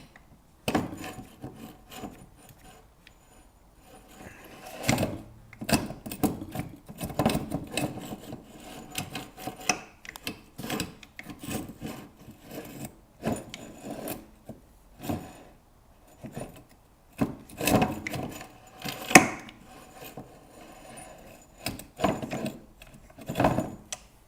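Mini lathe tailstock being worked back and forth along the lathe bed: irregular strokes of metal scraping and rubbing, with sharp knocks where it catches. The tailstock drags because the underside of the bed track is very rough and stops the plate from gliding smoothly.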